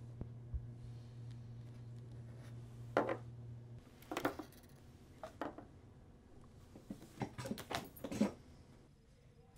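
Scattered sharp knocks and clinks, the clatter of glasses and chairs at a table as people get up, most of them bunched near the end. A steady low hum stops about four seconds in.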